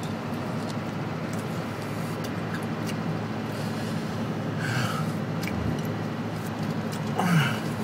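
Steady engine and road noise heard inside a moving truck's cab, with a short falling hum from a person's voice about seven seconds in.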